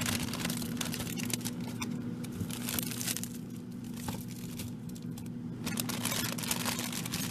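Plastic packaging of frozen food crinkling and rustling as packages are handled and shifted around in a freezer, with irregular small clicks and knocks.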